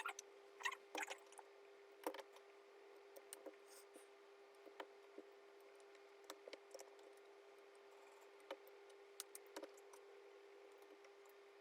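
Gateron Yellow mechanical keyboard switches being pressed into the keyboard's plate: scattered small clicks and snaps, a few louder ones in the first two seconds, then sparser and fainter. A faint steady hum runs underneath.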